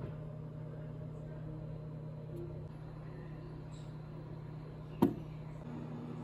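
Steady low hum, with one sharp click about five seconds in, as a Keurig single-serve brewer is loaded with a tea pod and set to brew.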